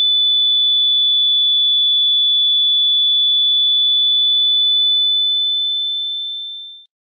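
A single steady, high-pitched electronic sine tone, held for about five seconds and then fading out.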